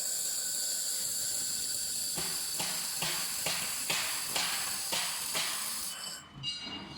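Fiber laser welder running on 2 mm carbon steel: a steady hiss with a high whine over it, joined about two seconds in by regular sharp pops, roughly two or three a second. It all stops about a second before the end.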